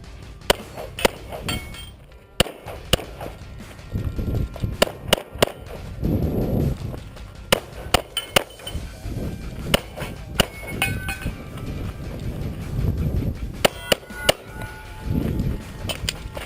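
A long string of pistol shots, some fired in quick pairs, with short pauses between groups. Several shots are followed by the metallic ring of hit steel targets.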